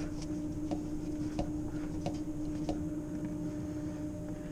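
Slow, evenly spaced drips of water falling into a plastic bucket from a plugged drain on a chilled water line, about three ticks every two seconds. Under them runs a steady hum.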